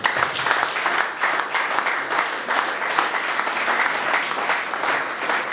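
An audience applauding with many hands clapping, steady throughout.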